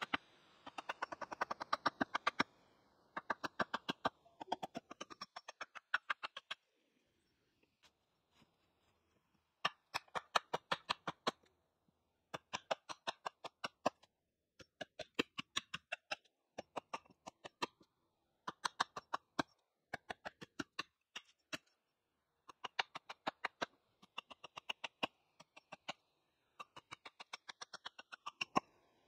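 Hatchet blade chopping at a peeled wooden pole in rapid light strokes, about eight a second, in bursts of one to two seconds with short pauses between them.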